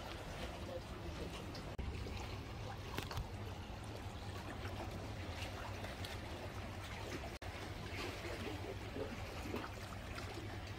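Seawater lapping and trickling against shore rocks, over a steady low rumble, with two brief dropouts in the sound.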